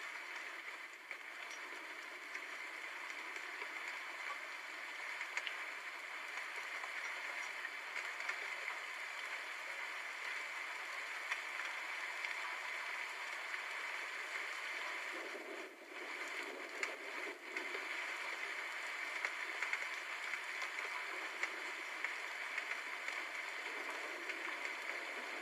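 Steady rain, a dense even hiss with occasional louder drop spatters; no thunder in this stretch.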